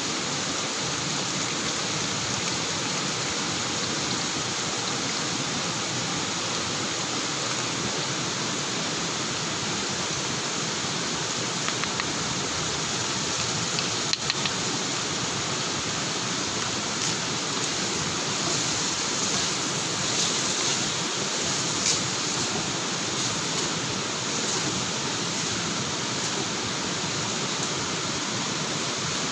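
Steady rushing of a nearby waterfall, with a few short clicks and scrapes from stirring in a metal wok, mostly in the second half.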